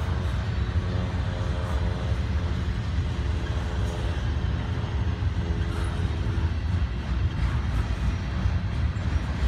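Double-stack intermodal train's loaded well cars rolling past: a steady low rumble of steel wheels on the rails, with faint humming tones that fade in and out.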